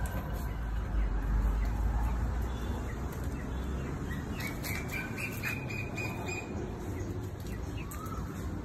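Birds calling: a cluster of short high chirps about halfway through and a brief rising-then-falling call near the end, over a low rumble that is loudest in the first two seconds.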